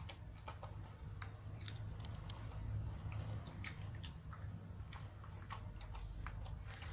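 A small dog chewing and crunching a hard milk calcium biscuit, with irregular crackling bites.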